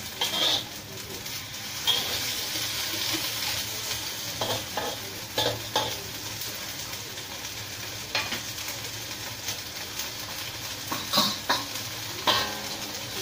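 Long beans sizzling steadily in a hot wok, with a metal spatula scraping and tossing them now and then.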